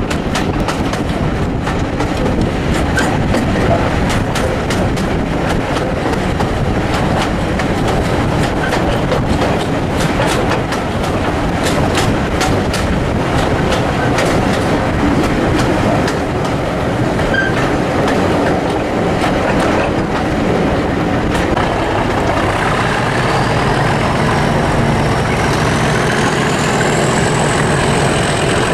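Heritage railway coaches running on jointed track, heard from an open carriage window: a steady rumble with the wheels clicking over rail joints. Near the end a high whine rises in pitch and holds as the train takes a curve, typical of wheel flanges squealing.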